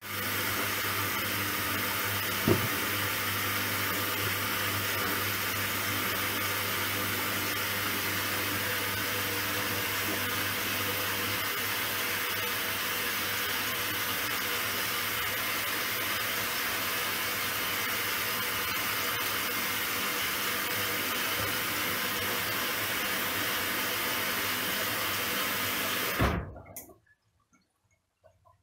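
Candy Grand'O Vita washing machine taking in water: a steady rush of water over a low hum, with a single knock about two and a half seconds in. It starts suddenly and cuts off sharply near the end.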